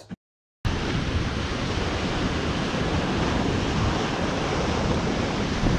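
Ocean surf breaking and washing ashore, a steady rushing noise with wind buffeting the microphone; it starts abruptly about half a second in, after a brief silence.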